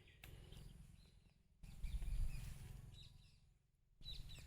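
Faint outdoor ambience: a few faint bird chirps over a low rumble.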